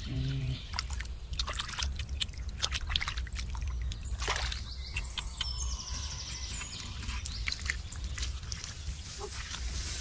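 Hand groping and splashing in a shallow muddy puddle, with many small wet clicks and squelches. About four seconds in a bird gives a falling whistle, followed by a buzzy high trill for a couple of seconds.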